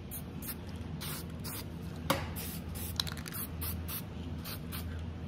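Aerosol can of burnt umber toner spraying in a string of short hissing bursts, misting stain-coloured wood to even out its colour, with one sharp click about two seconds in.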